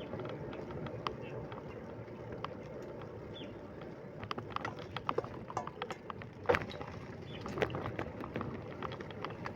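Bicycle on the move: steady rolling and wind noise with irregular clicks and rattles. The loudest is a sharp knock about six and a half seconds in.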